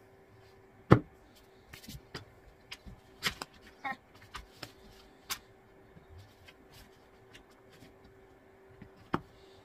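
Scattered knocks and clicks of hardwood slats and blocks being handled on a workbench and a one-handed bar clamp being set across them, the sharpest knock about a second in. A faint steady hum underneath.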